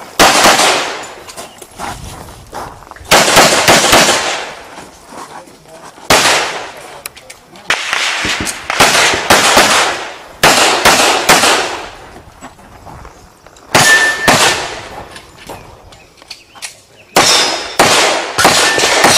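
Semi-automatic pistol fired in fast strings of shots during a practical-shooting stage: several bursts of quick shots with pauses of one to three seconds between them, each shot sharp with an echo trailing off.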